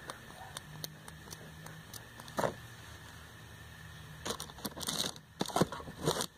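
Small perfume atomizer bottle being handled with faint clicks, then sprayed once about five seconds in with a short hiss, followed by two more brief hissy sounds near the end.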